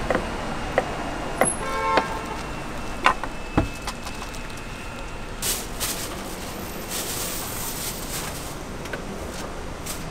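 Several sharp knocks and clicks in the first few seconds, then a few bursts of hiss, over steady background street noise.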